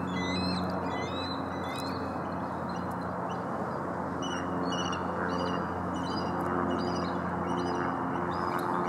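Birds chirping in short repeated calls over a steady low droning hum and hiss.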